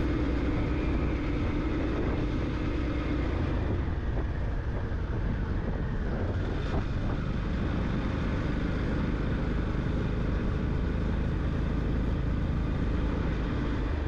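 Yamaha FZ-X motorcycle riding along steadily, its engine and wind rush on the rider's microphone making an even, continuous noise. A hum in the engine note fades about three seconds in.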